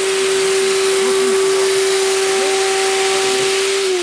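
Model RTG turbotrain running on the layout: a steady whine over a hiss that falls in pitch near the end.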